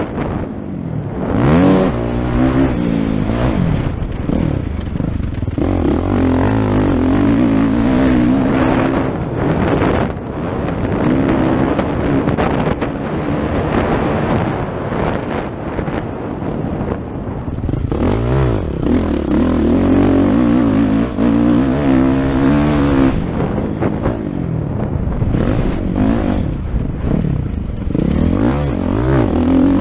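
Motocross dirt bike engine revving hard under race riding, heard from an on-bike camera: the pitch climbs and drops again and again as the rider accelerates, shifts and backs off.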